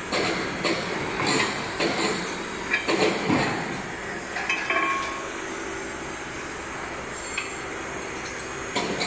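Metal clinks and knocks as the electric milling cutter (facer) of a hydraulic butt fusion machine is handled on its hoist hook against the steel machine frame, about a dozen in the first five seconds. After that a steady hum carries on.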